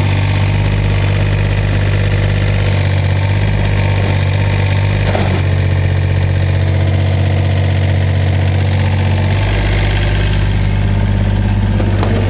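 Komatsu PC27MR mini excavator's diesel engine running steadily at idle, its note shifting slightly about nine seconds in.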